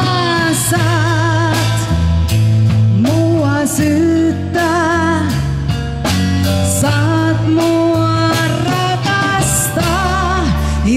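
Live iskelmä dance band playing: drums keeping a steady beat, a bass line changing note about once a second, and a lead melody with vibrato on top.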